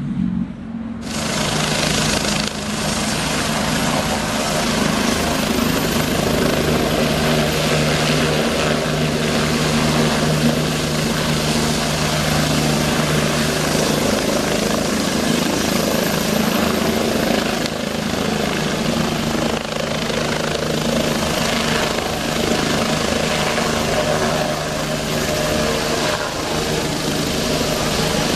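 Bell 429 twin-turbine helicopter running steadily: a steady turbine and rotor noise over a low hum, which comes in abruptly about a second in.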